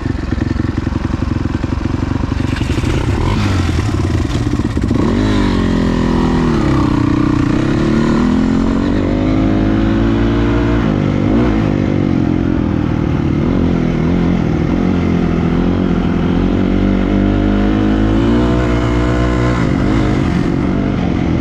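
Quad (ATV) engine running loudly under way, its pitch rising and falling again and again as the throttle is worked. It cuts off abruptly at the end.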